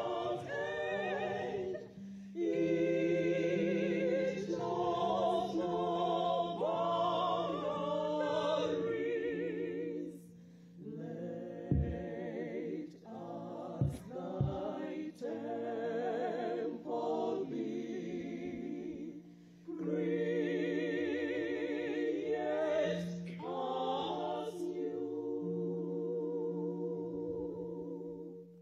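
Church choir singing a hymn in harmony, women's voices leading through microphones in phrases broken by short pauses. A few brief knocks come around the middle.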